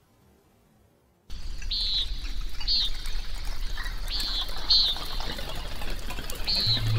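After about a second of near silence, flowing water comes in suddenly, with a bird's short high chirps over it roughly once a second. A steady low hum starts near the end.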